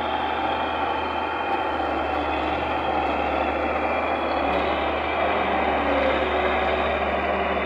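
Diesel engines of a combine harvester and a farm tractor running steadily as the combine drives off a steel river ferry onto the bank, swelling slightly about six seconds in.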